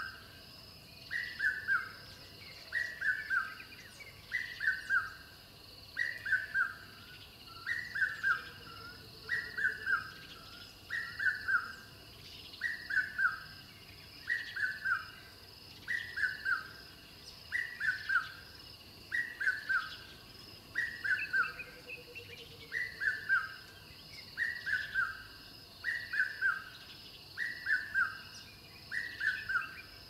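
A bird repeating a short call of three or four quick descending notes, very regularly about every second and a half to two seconds, over a fainter, steadier, higher-pitched chorus.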